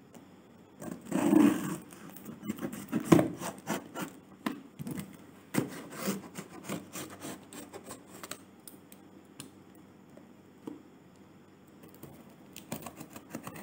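Scissors scraping and slicing through packing tape along the seam of a cardboard box. A loud rasping scrape comes about a second in, followed by irregular scratches and clicks that thin out after about eight seconds.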